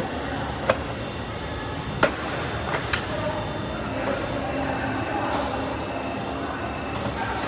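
Downspout elbow machine running with a steady mechanical noise, broken by three sharp knocks in the first three seconds and several short hisses.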